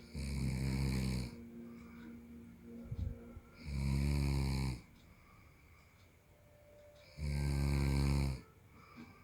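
A man snoring in his sleep: three loud snores, each about a second long, coming about three and a half seconds apart.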